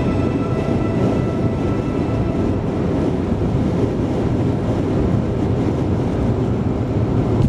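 Steady in-cabin road and engine noise from a 2001 Volvo V40 2.0i 16-valve four-cylinder petrol car cruising at speed, a continuous low drone with tyre rumble.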